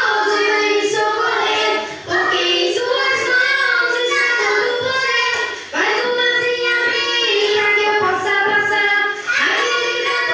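A young child singing in long held phrases, with a short breath between phrases about every three to four seconds.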